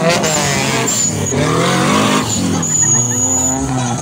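Off-road buggy engines revving hard, their pitch rising and falling again and again with the throttle.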